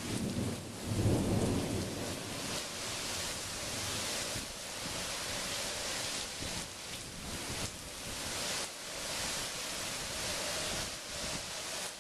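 Thunder rumbling for about two seconds at the start, loudest about a second in, over the steady hiss of heavy rain and wind.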